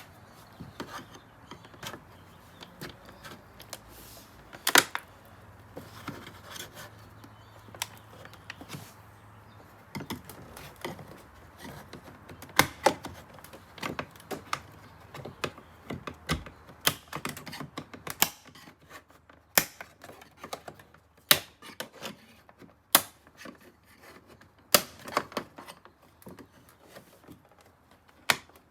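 Sharp plastic clicks and taps from the door handle trim pieces and their clips being worked with a trim tool, scattered at first and then coming every second or two in the second half.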